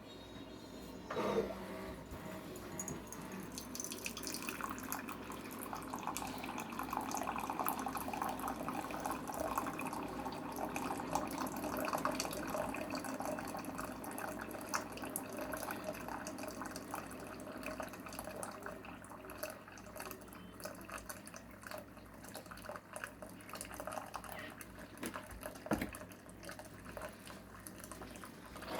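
Keurig single-cup coffee maker brewing a cup of white vinegar on a descaling run: hot liquid streaming and sputtering into the mug. There is a click just over a second in.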